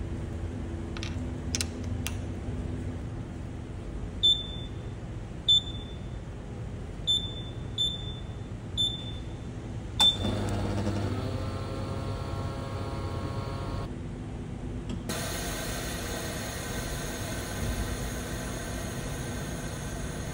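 Vacuum oil filling machine: six short high beeps as its panel buttons are pressed, then about halfway through the machine starts up, a brief falling pitch settling into a steady mechanical run as it begins filling the steering damper with oil. About five seconds later its sound changes to a fuller, steady running noise.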